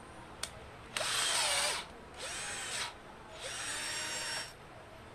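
Flipkart SmartBuy 20V cordless pistol-grip drill (YLCD-1820) spinning a twist bit in the air with no load, run in three short bursts on the trigger, its whine rising and falling in pitch as it speeds up and slows down; the first burst is the loudest. A single sharp click comes just before the first run.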